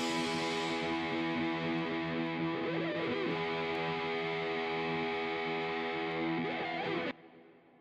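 Background guitar music: a held, sustained chord ringing at a steady level, which cuts off about seven seconds in and leaves a faint tail fading away.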